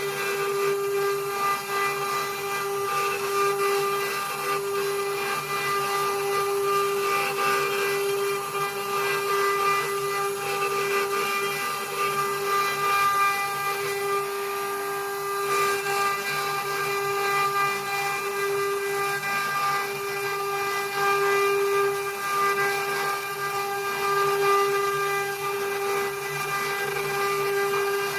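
CNC router spindle whining at one steady pitch with a hiss of cutting as it carves a bird-cage base, the level wavering slightly as the bit moves along the work.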